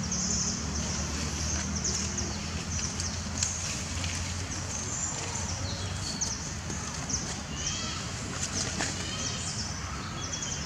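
Outdoor ambience: a steady low hum under many short, high-pitched chirps and squeaks, some falling in pitch, with a few faint clicks.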